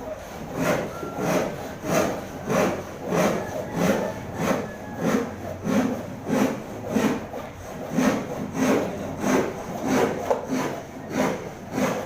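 Hand saw cutting wood in steady, even strokes, a little under two a second.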